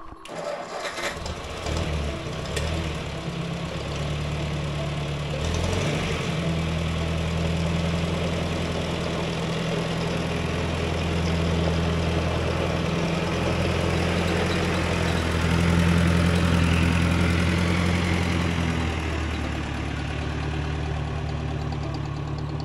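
Vintage farm tractor's engine running at a low steady speed as the tractor drives past, growing louder around two-thirds of the way through, then easing off.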